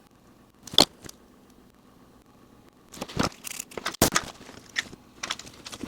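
Scalpel blade scraping and clicking on a phone's circuit board, scraping the coating off damaged traces to expose the copper. One sharp click, then a run of irregular short scrapes and clicks in the second half.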